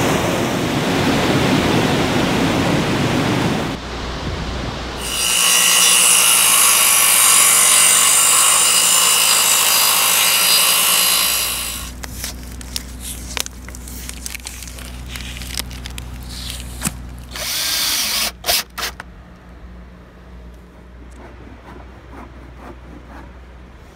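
River water rushing, cut off about four seconds in. Then an electric miter saw runs and cuts through a wooden post for about six seconds. After it come scattered light clicks and knocks, with a few short, loud bursts of a power tool a little past the two-thirds mark.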